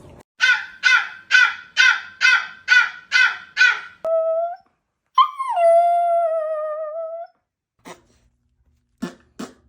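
Dachshund barking eight times in a quick, even run, then a short yelp and a long howl of about two seconds that drops in pitch and then holds. A few faint clicks come near the end.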